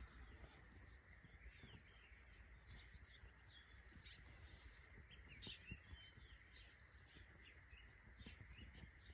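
Faint, scattered bird chirps, short calls repeating every second or so, over a near-silent outdoor background.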